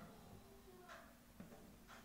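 Near silence, with a few faint ticks and rustles of fingers handling the network cable's loose copper wires.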